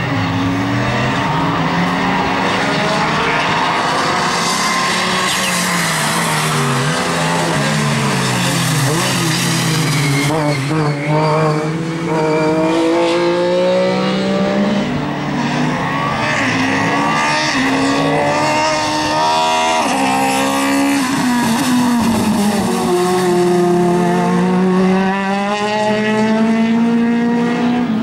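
Rally cars driven hard on a wet tarmac stage, their engines revving up and dropping back over and over through gear changes as several cars pass one after another, with more than one engine heard at once at times.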